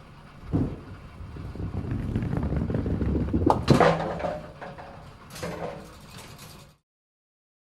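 Bowling ball dropping onto the lane with a thud, then rolling with a low rumble that grows louder before it hits a single pin with a sharp crack about three and a half seconds in; the pin clatters again nearly two seconds later.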